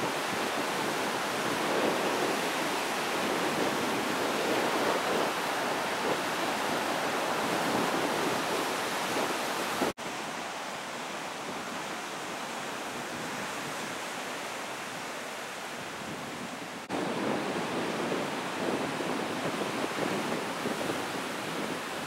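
Heavy surf breaking and churning over a rocky shore: a continuous rush of white water. About ten seconds in it drops suddenly to a softer, duller rush, and it comes back louder about seven seconds later.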